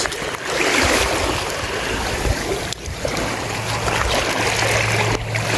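Steady rushing noise of wind and water, with wind buffeting the microphone.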